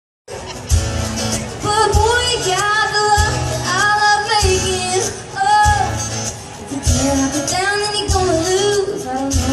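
Live country music: a singer over a full band, with a kick drum beating about every 1.2 seconds.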